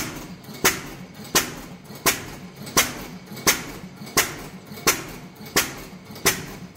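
15 hp Fairbanks Morse single-cylinder stationary engine running slowly, with a sharp, evenly spaced beat about once every 0.7 seconds.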